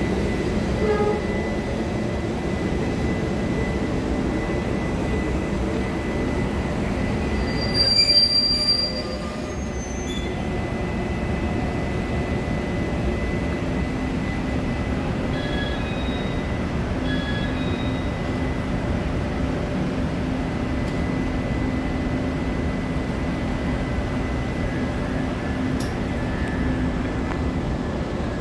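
Chu-Kuang express passenger train of orange-and-cream coaches rolling slowly along the platform and braking to a stop, with a brief high-pitched squeal about eight seconds in. Afterwards a steady rumble and hum of the standing train continues.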